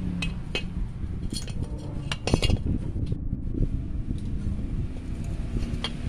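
Light metallic clinks and knocks as the aluminium end bracket of an oilless air compressor's electric motor is handled and worked loose from the stator. There are a few separate knocks, the loudest about two seconds in.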